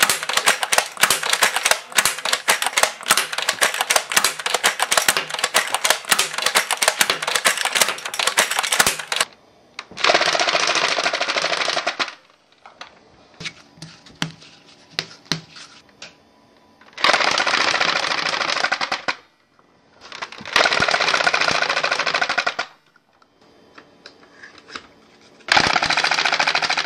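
Motorized foam-dart machine gun firing rapidly, darts clacking against a glass tank. The first nine seconds are one continuous stream of rapid clacks. After that come four shorter runs of about two seconds each, with quieter gaps between them.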